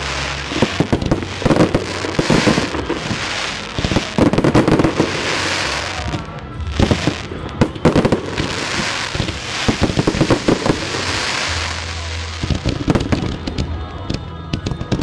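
Fireworks display: aerial shells launching and bursting in rapid succession, many sharp bangs close together, mixed with dense crackling from the bursts.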